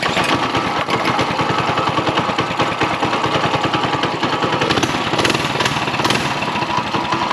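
Small single-cylinder four-stroke engine of a mini bike, a Predator 212, running steadily with a fast, even chugging.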